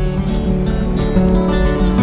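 Background music led by guitar, with notes changing every half second or so.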